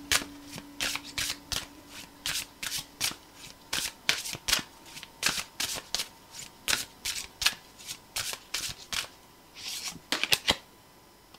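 Tarot cards shuffled by hand: a quick, irregular run of sharp card clicks and slaps, about two or three a second, pausing briefly near the end before a last few.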